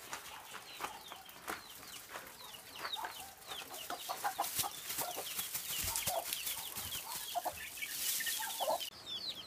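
Chicks peeping, a rapid stream of short, falling high chirps, with a few low clucks from the mother hen from about six seconds in. Behind them a hiss that cuts off suddenly near the end.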